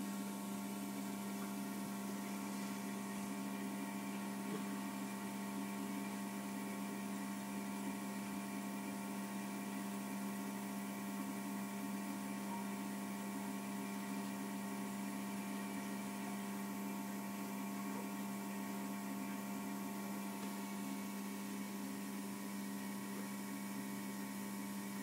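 Steady electric hum, recorded underwater, with one strong low tone and several fainter higher tones over a faint even hiss, unchanging throughout.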